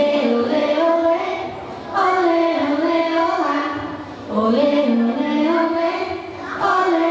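Voices singing a slow song, children's voices among them, in sung lines of about two seconds each with short dips between lines.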